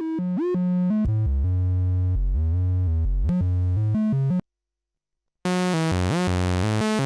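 Synthrotek MST analog VCO playing a sequenced run of short notes, its pitch set through the 1V/oct input; about a second in the notes drop an octave for a couple of seconds. Past the middle the sound cuts out for about a second while the output is repatched, then returns as a brighter, buzzier sawtooth in place of the softer triangle wave.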